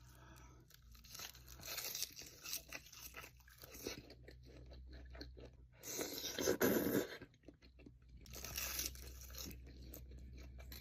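A person chewing sushi close to the microphone: irregular crunching and chewing, with a louder stretch about six seconds in.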